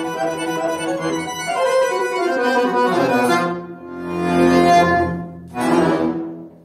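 Chromatic button accordion playing a fast run of notes, then a loud held chord over deep bass, a short break, and a last chord that dies away: the closing bars of the piece.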